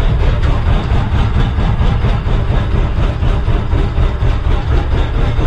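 A houseboat's engine running with a steady low rumble, heard from inside the boat while it is under way.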